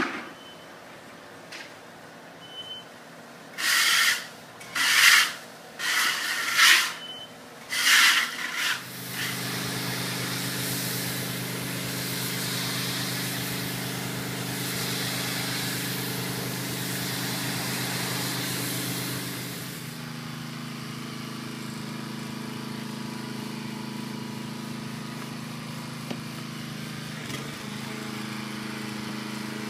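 Four short hissing bursts, then a small petrol-engine pressure washer running steadily with the hiss of its water spray. Its engine note shifts and the spray hiss drops about two-thirds of the way through.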